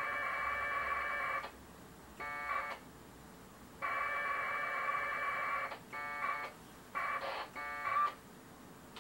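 AX.25 packet radio data heard through a radio's speaker, 1200-baud two-tone modem signal: two long bursts of about two seconds and four shorter ones near the end, carrying the reply of a shell command back over the air.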